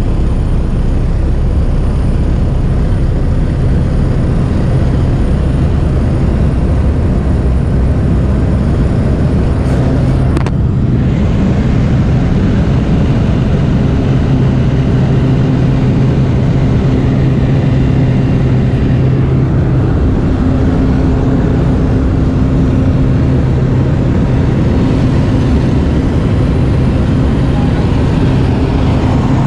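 Steady drone of a small propeller jump plane's engine and propeller, heard from inside the cabin while the plane takes off and climbs.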